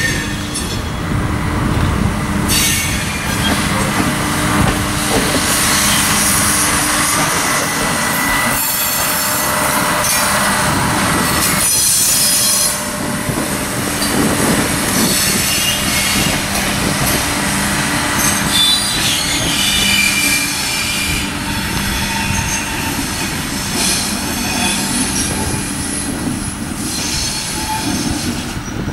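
Bluebird diesel railcar running past at low speed over curved track and points: the diesel engine hums steadily while the wheels squeal high on the curves.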